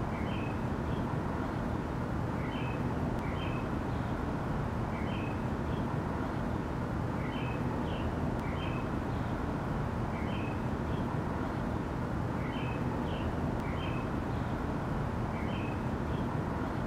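Steady low rumbling background noise, with groups of two or three short high chirps repeating about every two and a half seconds.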